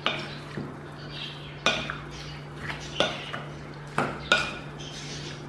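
A spoon clinking against a glass mixing bowl while raw chicken wings are stirred with dry spices: sharp clinks at irregular intervals, about one a second, with a steady low hum underneath.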